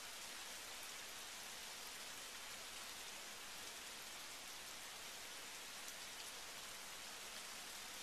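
Steady rain falling on wet pavement and shrubs: an even hiss with faint scattered drop ticks.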